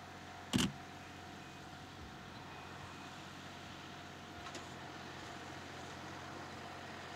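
Quiet outdoor background with a thin steady hum, broken about half a second in by one short, sharp knock and, near the middle, by a much fainter click.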